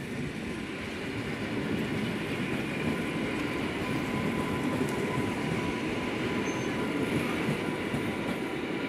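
EN57FPS electric multiple unit running past close by: a steady rumble and rush of wheels on rails, with a thin steady whine through the middle of the pass.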